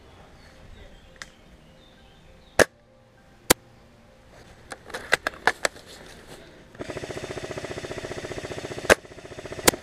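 Airsoft gunfire: a few sharp single cracks and smaller pops, then, past the middle, a rapid full-auto burst of about two seconds, followed by two more sharp cracks.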